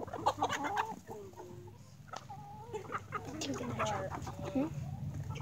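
Backyard hens clucking and giving short calls as they forage, in two busy bursts, one at the start and one from about three seconds in. A steady low hum runs underneath and grows louder from about halfway through.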